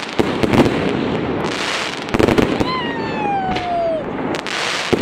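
Fireworks display: aerial shells bursting with loud bangs and dense crackling, with a loud burst about half a second in and another a little past two seconds. Midway a whistle slides down in pitch for over a second.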